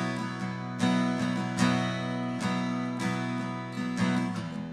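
Instrumental bar of a worship song: chords strummed on an acoustic guitar about once every 0.8 s, with no voice.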